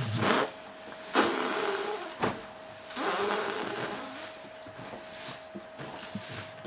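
A man breathing heavily: three long, noisy breaths about a second each, with a faint voiced edge.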